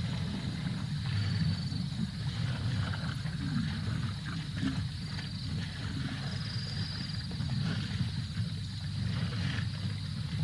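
Breeding herd of African elephants: a steady low rumbling sound throughout, with faint scattered higher sounds and a few brief high chirps.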